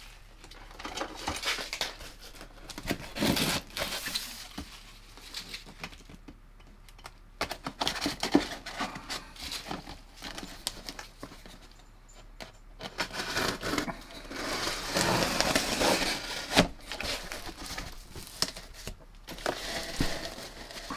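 A cardboard shipping box being unpacked: uneven bursts of rustling, crinkling and tearing as the tape and flaps are worked open and the plastic and styrofoam packing inside is handled, with a few sharp knocks in the second half.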